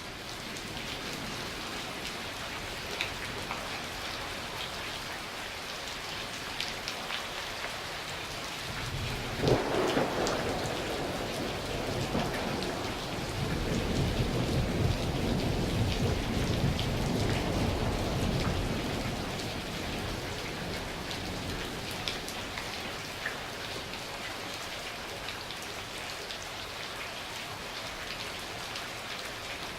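Steady heavy rain with scattered drops pattering close by. About nine and a half seconds in, a sharp thunderclap breaks into a low rumble of thunder that rolls on for about ten seconds before fading back under the rain.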